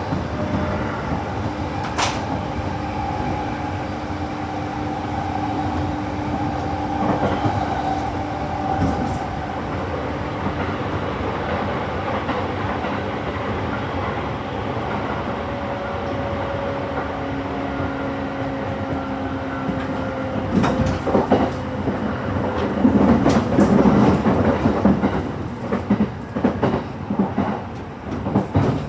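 E231-series commuter train running, heard from inside a carriage: a steady rumble with faint motor tones that slowly sink in pitch. A sharp click comes about two seconds in, and the wheels clatter more loudly over rail joints in the last third.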